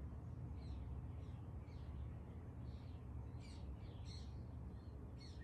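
Birds chirping in short, separate calls, more often in the second half, over a steady low rumble.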